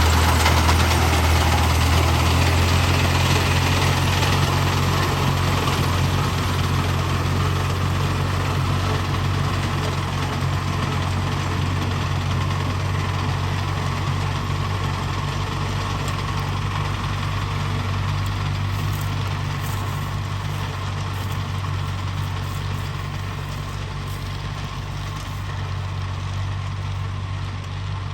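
Fiat 480 tractor's diesel engine running steadily, with a broad mechanical clatter over its low hum, slowly growing a little quieter.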